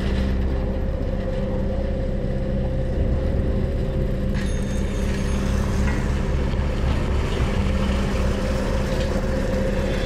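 Diesel engine of a JCB tracked excavator running steadily at work, a continuous low hum and rumble.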